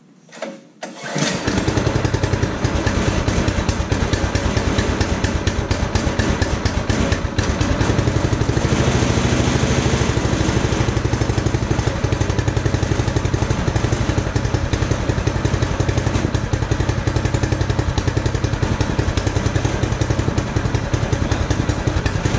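A brand-new small OHV go-kart engine pull-started by its recoil starter, catching on the very first pull about a second in and then running steadily at a fast idle. It is the engine's first start ever.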